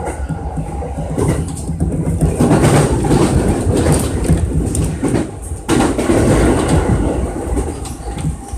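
Electric commuter train running at speed, heard from inside the front car: a steady rolling rumble with the wheels clattering over rail joints and points. It grows louder about two seconds in and drops back abruptly near six seconds.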